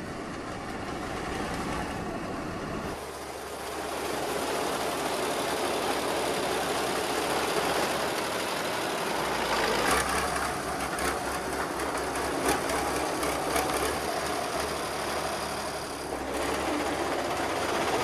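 Crawler tractor engine running steadily under load as it hauls a cable to drag a section of railway track sideways, with several sharp knocks about ten seconds in.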